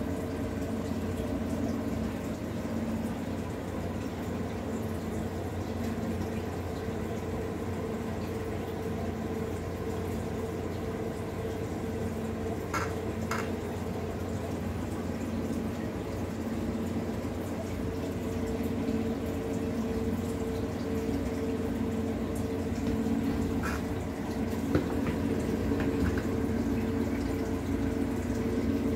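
Home aquarium running: steady bubbling and trickling water from the air bubbler, over a steady low hum. Two faint clicks, one about halfway through and one near the end.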